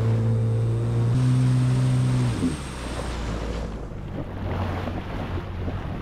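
2023 Yamaha FXHO WaveRunner engine running at low speed, rising slightly in pitch about a second in, then throttling back a little over two seconds in. Wind and water noise take over once the engine drops.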